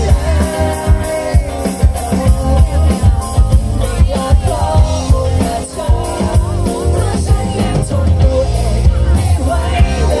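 Live pop-rock band playing through a PA system: drum kit, electric guitar, bass guitar and keyboard, with a male voice singing over them.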